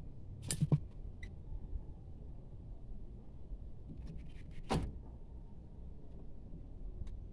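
A few sharp clicks of pliers and steel parts being handled on a vehicle's rear drum brake: a couple about half a second in, a few light ticks around four seconds, and one sharper click just before five seconds, over a low steady background rumble.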